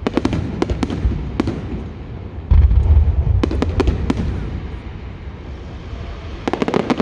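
Fireworks going off: quick clusters of sharp cracks, with a heavy low boom about two and a half seconds in and another burst of cracks near the end.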